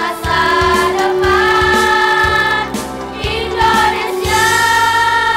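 Girls' choir singing in harmony, holding long notes, and ending on a long sustained chord in the second half. A low regular beat sounds under the singing for the first four seconds.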